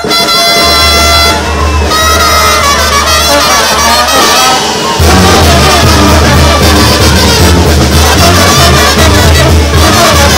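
Live brass band playing loudly, with trumpets and trombones. Held notes give way to a fuller passage, and a heavy low bass line enters about five seconds in.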